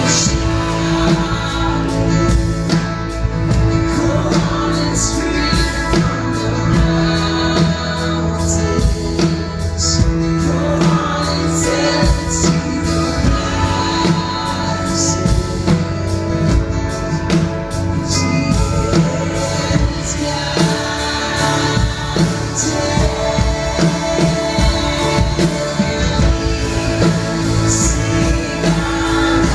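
Live worship band playing a song, with singing over a full band and steady drum and cymbal hits.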